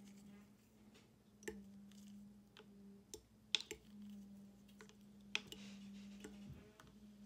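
Alka-Seltzer tablet pieces being handled and dropped into a plastic bottle of oil and water: a few scattered sharp clicks, the loudest a quick cluster about halfway through, over a steady low hum.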